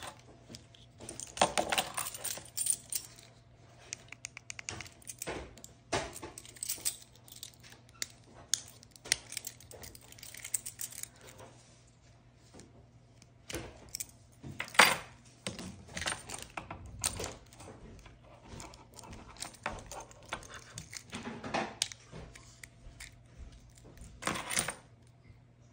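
Keys and a metal split ring clinking and jangling against a Toyota Camry key fob's plastic case as the ring is worked off the fob, with small irregular clicks and clatters in clusters.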